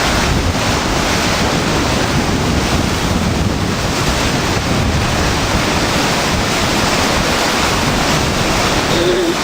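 Fast, high floodwater of the Maumee River rushing steadily, with wind buffeting the microphone.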